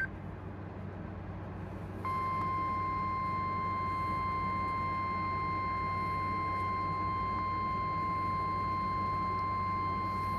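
NOAA Weather Radio 1050 Hz warning alarm tone: one steady tone that starts about two seconds in and holds unbroken, over a low electrical hum. The tone signals that a warning broadcast is about to follow.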